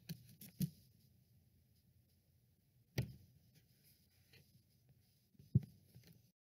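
Faint handling noise with a few scattered clicks and knocks from a person leaning in over the recording device at close range. The sharpest click comes about three seconds in and another knock about five and a half seconds in, and then the sound cuts off suddenly.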